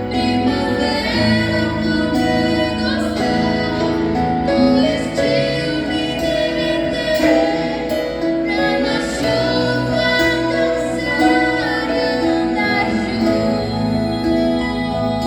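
A female voice singing a song with vibrato over steady instrumental accompaniment.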